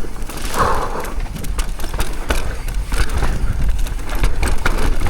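Downhill mountain bike descending a loose dirt trail: wind buffeting the microphone, tyres on dirt and the bike rattling with many sharp clicks and knocks.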